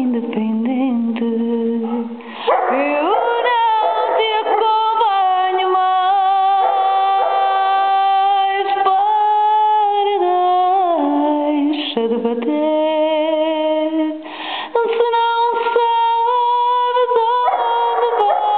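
A woman singing a fado while a golden retriever howls along in long, wavering held notes, with two short breaks.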